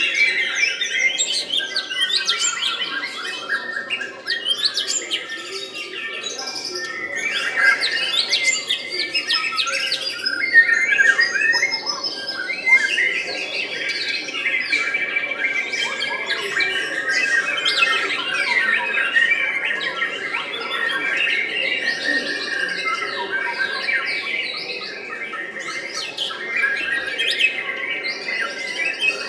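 White-rumped shama (murai batu) singing a continuous, varied song of rapid chirps, slurred notes and whistles.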